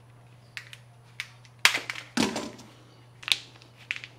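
Cutters snipping through split plastic wire loom tubing: a few light clicks, one loud sharp snap about one and a half seconds in followed by a duller knock, and another click near the end.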